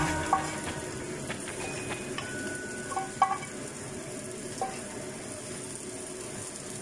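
Wok sizzling as leftover cooked rice is tipped onto sautéing onions and spring onions, with a few light knocks of the container against the wok, the loudest about three seconds in.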